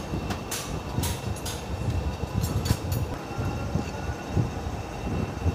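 A few sharp metallic clicks of a hand wrench working on bolts in a car's engine bay, over a low, uneven rumble.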